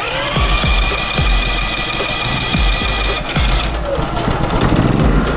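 Westinghouse iGen4500DF dual-fuel inverter generator being electric-started on propane: the starter cranks the engine with a steady whine, and about four seconds in the engine catches and starts running.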